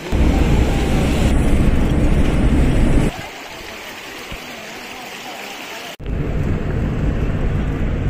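Outdoor wind noise rumbling on the microphone, loud and low. It breaks off abruptly about three seconds in to a quieter hiss, then cuts back in about six seconds in.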